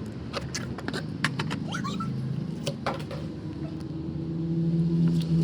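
Clicks and knocks of a plastic toy JCB digger being handled. A steady low hum builds toward the end.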